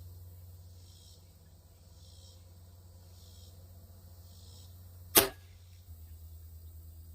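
.177-caliber pellet gun firing a single shot about five seconds in, one sharp crack. Insects pulse faintly in the background about once a second.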